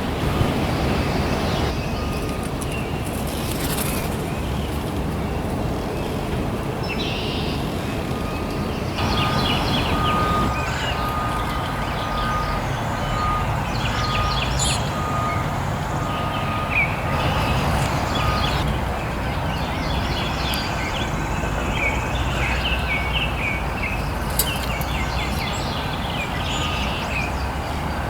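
Small songbirds chirping and twittering in repeated short phrases, busiest in the second half, over a steady low rumble. A faint, evenly broken beeping tone runs through the middle stretch.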